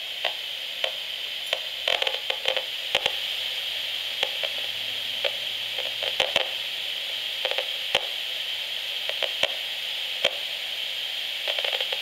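Audio output of a Gigahertz Solutions HF35C RF analyser: a steady high hiss broken by irregular sharp crackling clicks, some in quick clusters. The clicks are pulsed radio transmissions from a bank of smart meters one floor below, coming through the floor.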